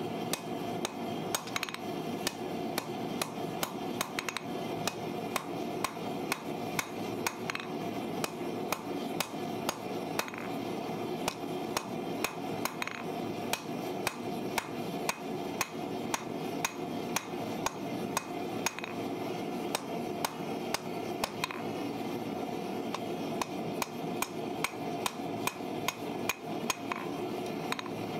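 Hand hammer striking red-hot rasp steel on an anvil in a steady rhythm of about two blows a second, as the bar is drawn out under the hammer.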